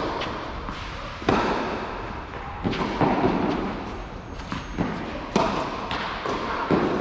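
Tennis rally on a clay court: sharp racket strikes on the ball and ball bounces about every second, each echoing in the roofed hall.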